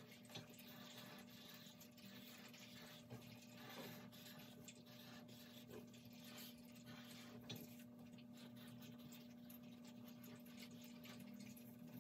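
Near silence: faint scratching of a Sharpie permanent marker being drawn along paper, over a steady low hum.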